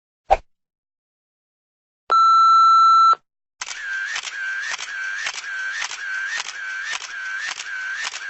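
Synthetic electronic sound effects: a short click, then a single steady beep lasting about a second, then a warbling electronic tone that wobbles up and down just under twice a second for about five seconds.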